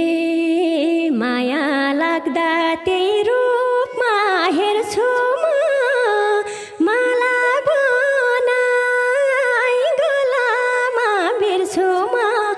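A woman singing alone, without the band: a slow, free-flowing Nepali lok dohori melody with long held, wavering notes and short breaks between phrases.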